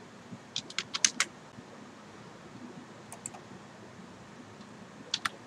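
Computer keyboard keystrokes in short clusters: a quick run of about five taps around a second in, two more near three seconds, and a couple near the end, over faint room hiss.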